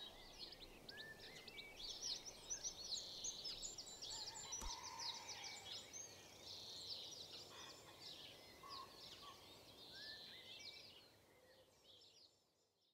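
A chorus of many songbirds chirping and singing, faint, fading out near the end.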